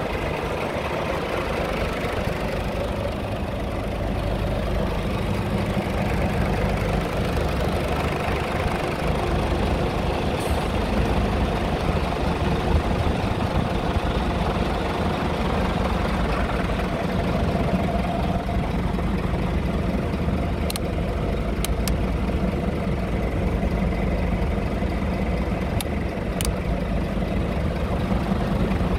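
Scania R truck's diesel engine idling steadily, with a few faint clicks about two-thirds of the way through.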